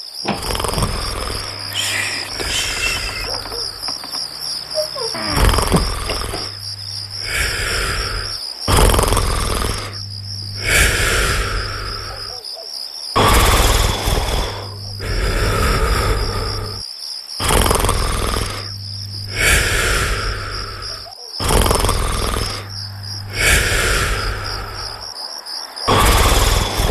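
A person snoring in a slow, regular rhythm, a swell of breath about every two seconds, over a continuous chirping trill of crickets.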